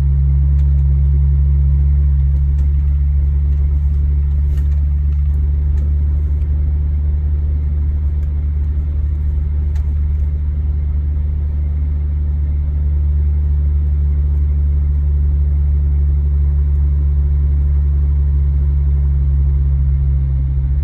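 Jeep Wrangler Rubicon driving at a steady speed on a sandy dirt road: a steady, loud low drone of engine and drivetrain that holds even throughout.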